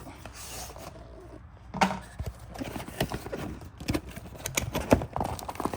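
A cardboard box and its packaging being handled as the kit's parts are pushed out: a run of irregular clicks, knocks and rustles, starting about two seconds in.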